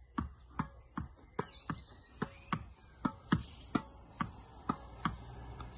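Tennis ball volleyed against a wall with a racket on the backhand: a steady run of sharp pocks as the ball meets the strings and the wall, two or three a second.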